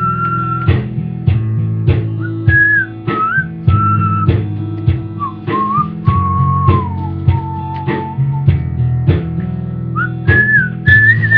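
A person whistling a wandering tune over guitar music that has a steady beat.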